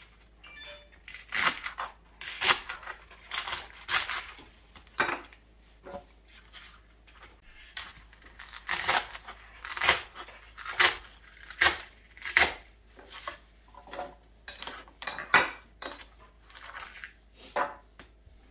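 Chef's knife chopping a leek into chunks on a wooden cutting board: sharp single chops roughly once a second, at an uneven pace.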